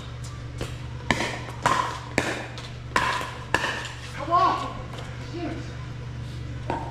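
Pickleball paddles striking the plastic ball in a fast exchange at the net, a sharp pock about every half second for a few seconds before the rally stops, with one more knock near the end. Under it runs a steady low hum, and a brief squeak or short call comes just after the hits end.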